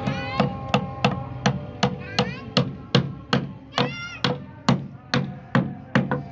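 A hammer striking again and again in an even rhythm, a little under three blows a second, each blow ringing briefly; a short chirp sounds about four seconds in.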